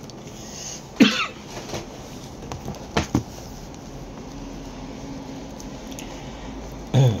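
Hands handling a shrink-wrapped book and picking at its plastic wrap with the fingernails: a few sudden crinkles and knocks, about a second in, about three seconds in, and the loudest one near the end.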